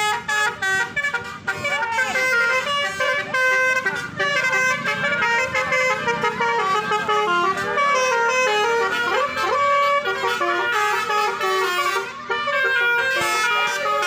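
Basuri 'telolet' musical horn, a multi-trumpet vehicle horn, playing a quick tune of stepped notes with several tones sounding together. It breaks off briefly about twelve seconds in.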